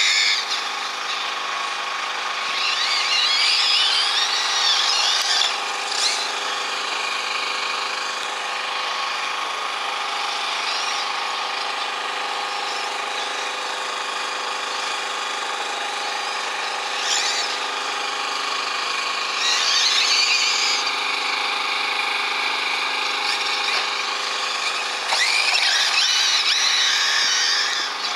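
Off-road 1/8-scale RC racing car's motor whining at high revs, its pitch rising and falling as it throttles up and backs off around the track over a steady drone. Louder, higher-pitched runs come about 3 to 5 seconds in, around 20 seconds in, and near the end.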